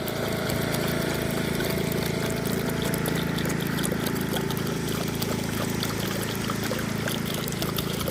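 A thirsty dog drinking water, lapping with many small wet clicks, over a steady low hum.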